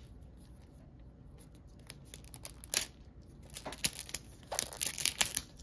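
Plastic packaging from a toy blind capsule being torn and crinkled by hand, in short bursts of rustling that start about two seconds in and stop shortly before the end.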